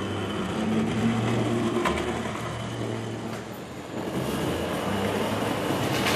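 O scale model tram running on the layout's track: a steady electric motor hum with rolling wheel noise from the rails.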